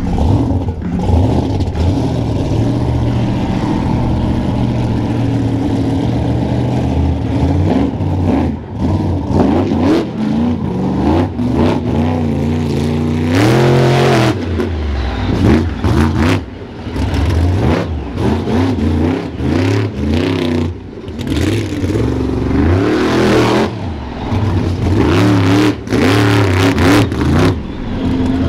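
Monster truck engine revving hard again and again, its pitch climbing and falling as the truck accelerates and launches over a row of crushed cars, with several sharp bangs from the truck landing and hitting.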